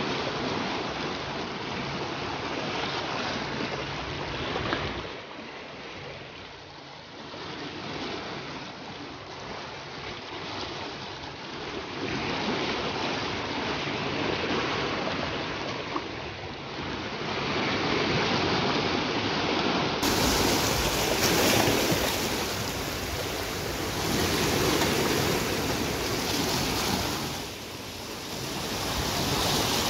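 Sea waves washing over shore rocks, the surf swelling and easing every few seconds.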